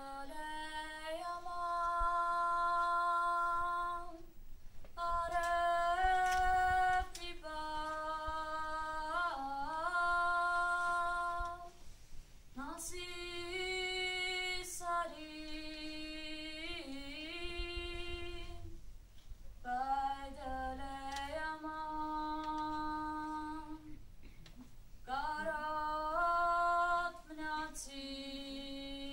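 A girl's solo voice singing unaccompanied, holding long notes in phrases of several seconds with short breaths between them.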